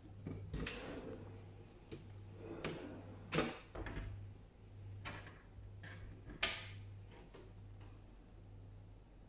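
A tall kitchen cabinet door and its pull-out pantry unit of chrome wire baskets being opened: a series of clicks and knocks, the loudest about three and a half and six and a half seconds in, over a steady low hum.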